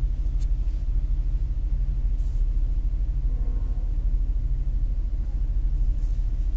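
Steady low rumble of a car idling, heard from inside its cabin.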